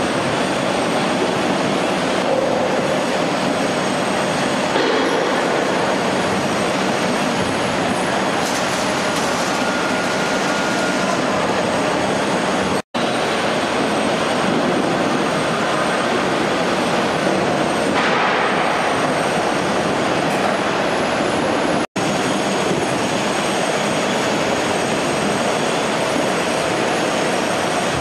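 Apple sorting and packing line running: a steady mechanical rattle and rumble of conveyors and rollers carrying apples. It cuts out for an instant twice.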